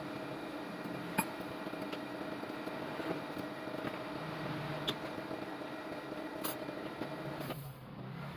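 A steady machine hum with a hiss, broken by a few light clicks; the hiss cuts off near the end.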